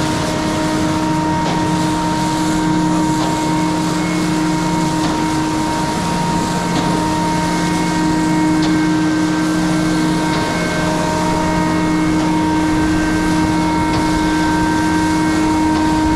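Cement mixer truck's diesel engine running steadily, under the hiss of a water hose spraying the truck's chute and rear.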